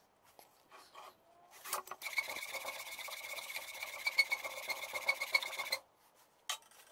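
A steel flat file rasping over the edge of a wooden workpiece held in a bench vise. It runs as one unbroken scraping run that starts about two seconds in and cuts off sharply near the end, with a few lighter scrapes before it.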